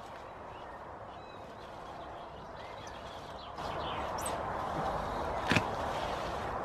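Large rhubarb leaves rustling as stalks are pulled up by hand, the rustle growing louder a little past halfway, with one sharp snap about five seconds in as a stalk comes away from the crown.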